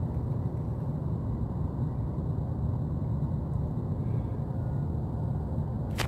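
Steady low rumble of outdoor background noise, with a single sharp click right at the end.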